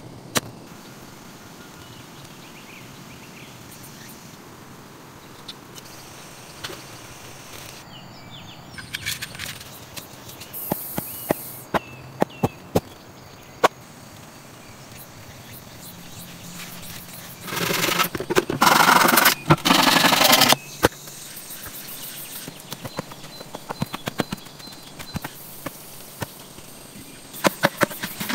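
Hands working bamboo sticks and earth: scattered knocks and taps of bamboo, then a rough scraping and rustling of soil lasting about three seconds a little past halfway, which is the loudest part, and a quick run of taps near the end.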